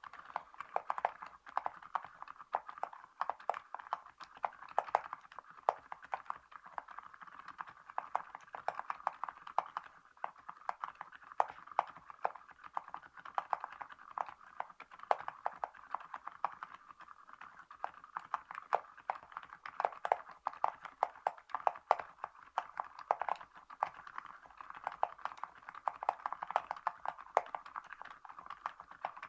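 Continuous fast typing on a Varo V87A mechanical keyboard with linear switches, fitted with Awekeys gold metal keycaps: a dense, steady run of keystroke clicks.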